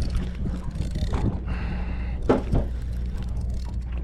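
Steady low hum of the fishing boat's machinery, with scattered sharp knocks and clatter of gear being handled on deck.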